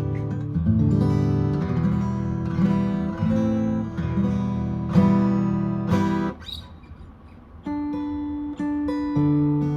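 Eastman E1D dreadnought acoustic guitar strung with Monel strings, played fingerstyle: plucked notes and chords ringing out. About six seconds in the playing thins to a quieter ringing tail, and fresh notes come in again a second or so later.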